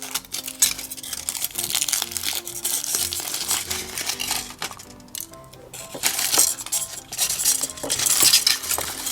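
Small hard plastic pieces clicking, clinking and rattling as they are handled, with rustling, over background music; there is a short lull about five seconds in.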